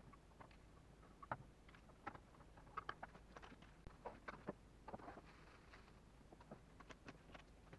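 Faint, scattered clicks and light knocks of aluminium-profile frame pieces and small parts of a Bachimaker D8-4050P laser engraver being handled and fitted together by hand, with a brief rustle about five seconds in.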